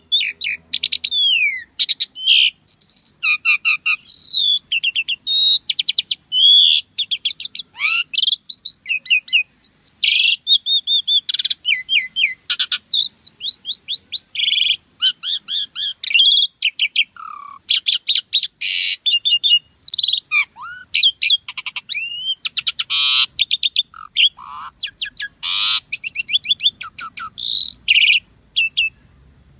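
Asian pied starling (jalak suren) singing nonstop: a long, varied song of clear whistles, sweeping glides, rapid trills and harsh chattering notes, with little pause between phrases.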